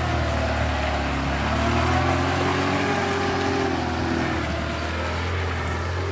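UAZ Patriot SUV engine working under load as it drives through mud, its revs rising and falling in the middle.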